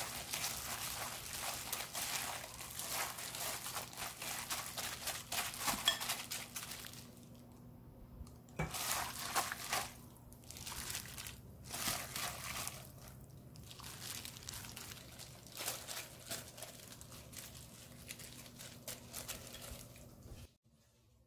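Plastic-gloved hand tossing and squeezing julienned Korean radish in seasoning: the glove crinkles with the wet squish of the radish strands, in quick continuous strokes at first and then scattered ones. A low steady hum runs underneath, and everything cuts off about a second before the end.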